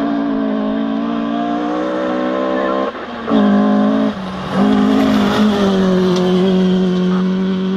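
Rally car engine held at high revs as the car approaches along a gravel forest stage and passes. The note is steady, with two brief breaks about three and four seconds in, where the driver lifts off or changes gear.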